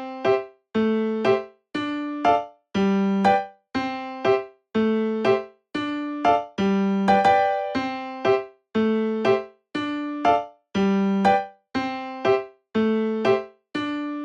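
Background music: a light electric-piano tune of short repeated notes that each start sharply and fade, in a bouncy rhythm.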